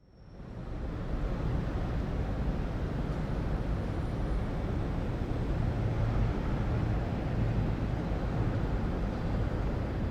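City ambience: a steady low rumble of distant traffic, fading in over the first second and then holding even.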